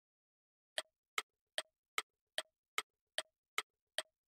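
Clock-like ticking sound effect of a quiz countdown timer: short, evenly spaced ticks, about two and a half a second, starting about a second in. It counts down the seconds before the word is read out.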